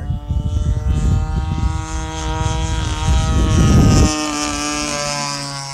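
DLE 40 twin-cylinder two-stroke gas engine of a giant-scale RC plane running in flight overhead, a steady propeller drone whose pitch wavers slightly. A heavy low rumble covers it until about four seconds in, then cuts off suddenly, and the drone carries on, slowly fading.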